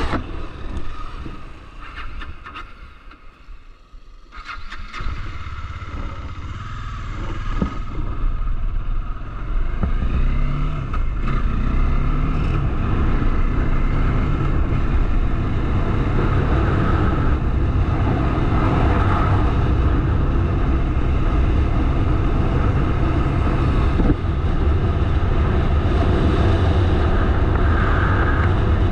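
Bajaj Dominar 400's single-cylinder engine on the move: quiet with a few clicks at first, then pulling away and rising in pitch through several gears around ten seconds in. It settles into steady riding under a heavy low rumble of wind on the microphone.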